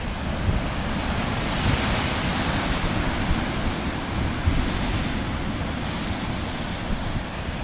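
Atlantic surf breaking and washing over rocks, a steady rushing hiss that swells about a second and a half in. Wind buffets the microphone in the low end.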